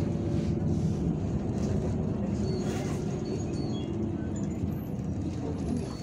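Irisbus Citelis 12M city bus driving, heard from inside the passenger cabin: a steady low engine hum under road noise, easing off a little near the end.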